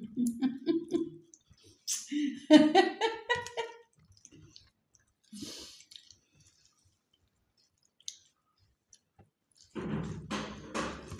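People eating rice and fish curry by hand from steel plates, with chewing and the squish of rice being mixed. A person's short wordless vocal sounds come in the first few seconds, and a louder stretch of eating noise comes near the end.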